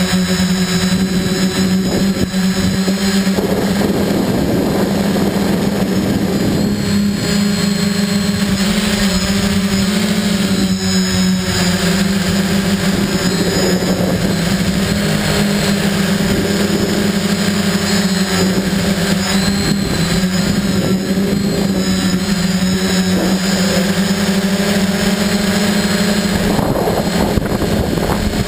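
Quadcopter's electric motors and propellers running at a steady pitch, heard close up from the onboard camera, with gusts of wind noise on the microphone a few seconds in and near the end.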